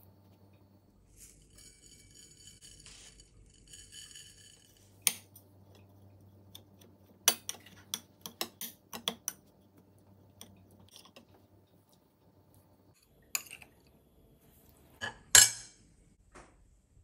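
A metal spoon scrapes across a ceramic plate for a few seconds, then clinks against it in a series of sharp taps as it mashes and mixes soft steamed rice puttu. The loudest clinks come near the end.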